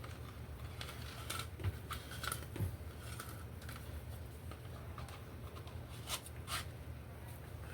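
Parts of a hang work light being handled and fitted back together: scattered light clicks and taps, the sharpest about a second and a half in, at two and a half seconds and around six seconds, over a steady low hum.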